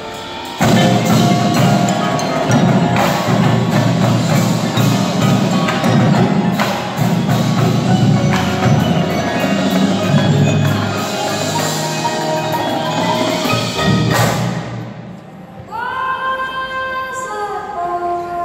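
Indoor percussion ensemble playing: marimbas and vibraphones with a marching drumline, loud and dense with many sharp drum hits. About fifteen seconds in the drums drop out and sustained held chords ring on.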